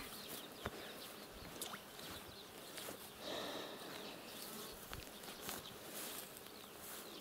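Faint buzzing of flying insects, with a few soft clicks.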